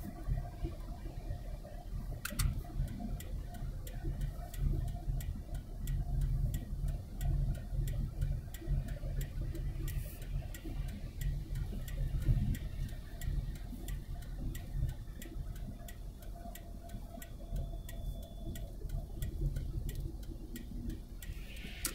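Steady low road and engine rumble of a car cruising on a freeway, heard inside the cabin, with a run of light, quick ticks, about three a second, through much of it.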